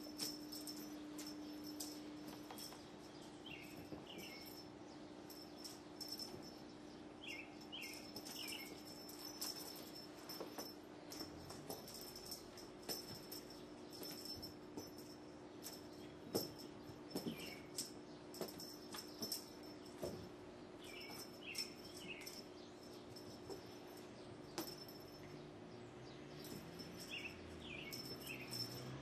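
Faint light taps and rustles of cats playing with a feather wand toy on carpet, over a steady low hum. A short high chirp of three quick notes repeats every few seconds.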